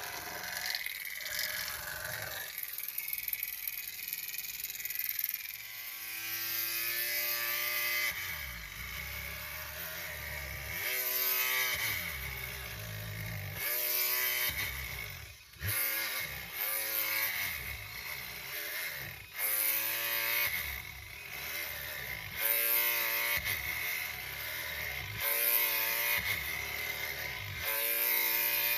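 Small electric motor of a miniature carpet-cleaning machine running as it is pushed back and forth over a soapy rug, its whine repeatedly rising and falling in pitch as the load changes.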